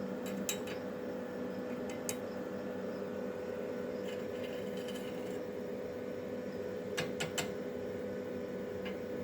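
A few light metallic clinks of steel pieces being handled, three in quick succession about seven seconds in, over a steady electrical hum.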